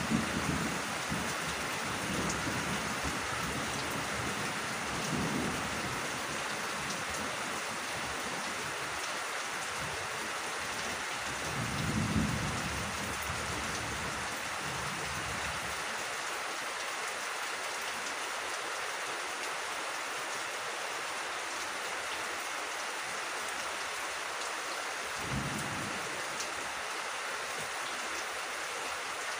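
Steady rain falling, with a few short low rumbles, the strongest about twelve seconds in.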